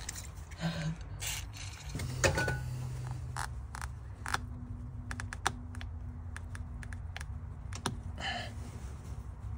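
Scattered small clicks and rattles of wires and a switch being handled as a stubborn bullet connector is worked by hand out of its socket, over a faint steady hum.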